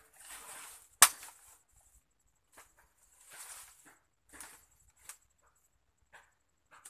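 A single sharp chop of a mandau (machete) into a branch about a second in, the loudest sound, among several brief rustles and crackles of brush and leaves being pulled and cleared.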